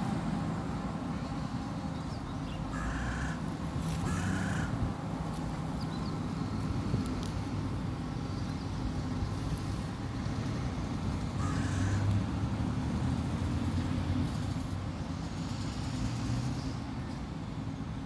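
Steady low rumble of road traffic, with a hooded crow cawing twice a few seconds in and once more near the middle.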